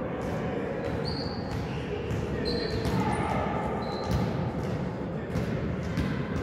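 Indoor volleyball play in a large, echoing sports hall: a ball being hit and bouncing with sharp knocks, and a few short high squeaks of shoes on the court floor.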